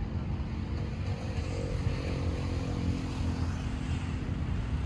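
Steady low rumble of motor traffic, with a faint engine hum that swells and fades through the middle.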